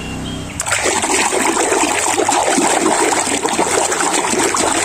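Water splashing and sloshing as a plastic toy is scrubbed by hand in a tub of water, starting about half a second in.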